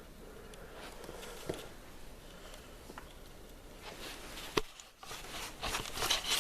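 Quiet rustling and handling of a snow boot and its laces as they are tied, with a sharp click about four and a half seconds in, then louder scuffing and rustling near the end.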